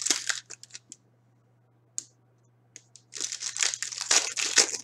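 Hockey card pack wrapper crinkling and being torn open by hand. There is a short rustle at the start, a single tick about two seconds in, and a longer run of crinkling and tearing near the end.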